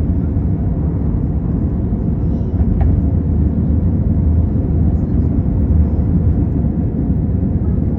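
Airbus A320 cabin noise from a window seat during takeoff: a steady, deep rumble of the jet engines and the rushing air around the fuselage, with a faint tick about three seconds in.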